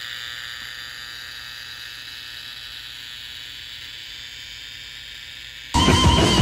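Butane torch lighter's jet flame hissing steadily. About five and a half seconds in, loud rock music with guitar and drums cuts in suddenly.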